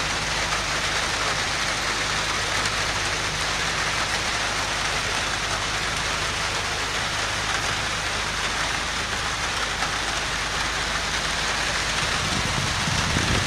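Steady rain falling, an even hiss, over the low steady hum of a boat's engine.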